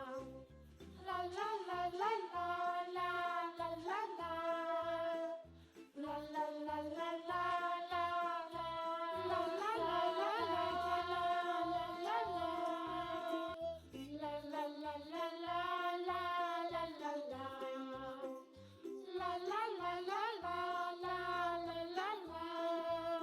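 Background children's music: a sung melody in short phrases over a rhythmic accompaniment.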